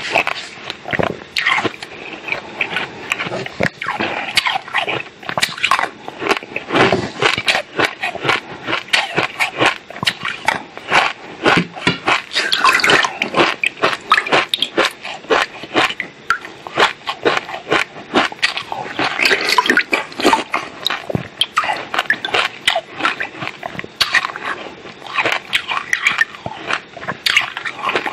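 Ice being bitten and crunched between the teeth, picked up close by a lapel microphone: a rapid, irregular run of sharp cracks and crackles.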